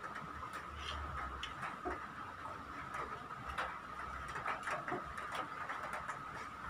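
Small irregular plastic clicks and ratcheting as a ring light's phone holder clamp and ball joint are handled and adjusted, over a steady faint high tone.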